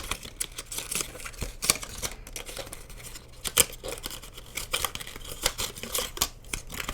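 Headset packaging being opened by hand: irregular rustling, scraping and sharp clicks of a box and its inner packaging.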